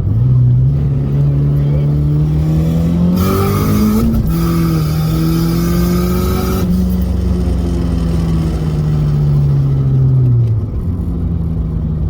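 Ford Mustang SVO's turbocharged 2.3-litre four-cylinder engine under way, heard from inside the car: the engine note climbs, drops sharply about four seconds in as a gear changes, then slowly winds down toward the end. A loud hissing rush rides over the engine from about three to seven seconds in. The exhaust leak at the number-four runner has just been welded and sealed.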